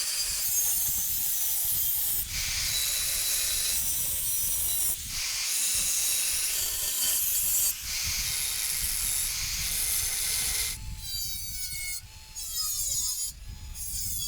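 Workshop tool rubbing and scraping on a workpiece in several runs of two to three seconds each. Near the end come a few squealing tones that slide down in pitch.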